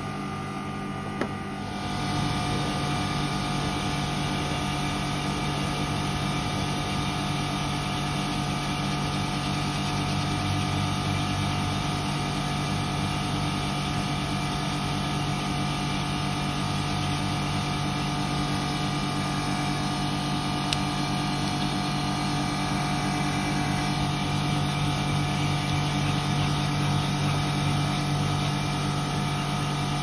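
Carrier 38QCA outdoor air-conditioning condensing unit running, its compressor and condenser fan giving a steady mechanical hum that gets louder about two seconds in, with a single short click just before.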